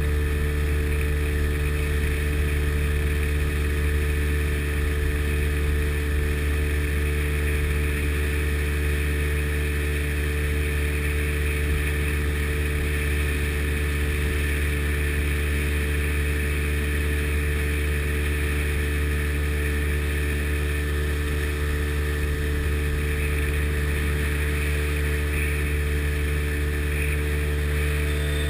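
Sea Ray Sea Rayder jet boat's two-stroke engine running steadily at an even cruising speed, its pitch holding level throughout.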